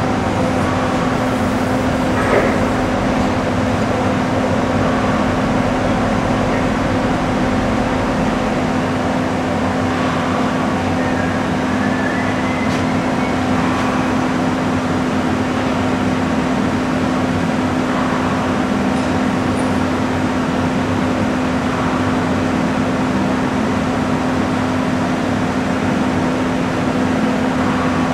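Cincinnati 750-20 VerciPower CNC horizontal/vertical mill running with a steady hum while its table is jogged along the X axis with the handwheel pulse generator. There is a click about two seconds in and a faint rising whine near the middle.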